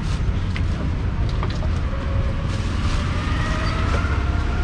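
Street traffic noise: a steady low rumble of passing motor vehicles, with a faint rising engine note in the second half.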